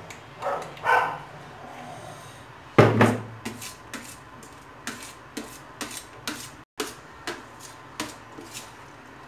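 A metal spoon scraping and clicking against a steel plate while gathering lapsi pickle, in a string of sharp clicks about twice a second. About three seconds in, a heavier knock as a glass jar is set down on the table.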